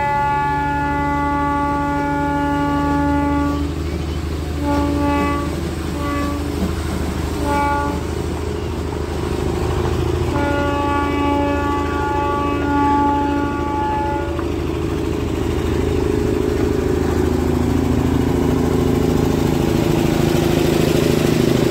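Darjeeling Himalayan Railway toy-train locomotive whistle: a long blast, three short toots, then a second long blast of about four seconds. A steady low engine rumble runs underneath and grows a little louder near the end.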